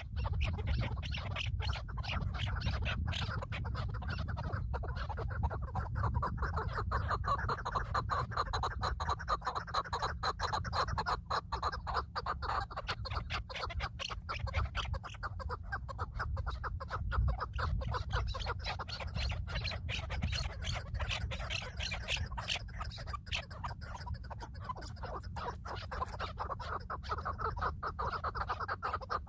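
Birds calling in a harsh, rapid chatter over a steady low rumble.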